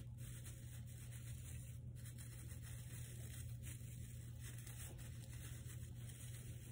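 Faint rustling and rubbing of an artificial pine tree's plastic branches as they are bent and fluffed by hand, over a steady low hum.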